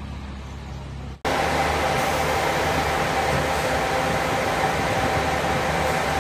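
A coach bus engine gives a low rumble for about the first second. After an abrupt cut, a louder steady hum and hiss of a standing coach running follows, with a faint steady whine.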